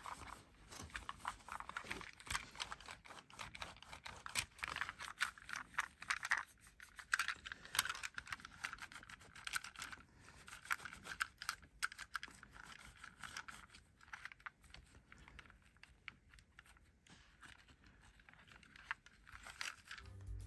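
Wet wipes rubbed over a die-cast toy car: a continuous run of soft scratching and rustling with many small clicks.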